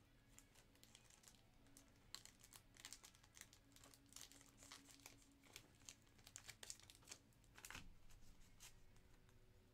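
Faint crinkling and crackling of thin plastic: a pack of penny sleeves being opened and handled, with scattered crackles that bunch up about two seconds in and again near the end.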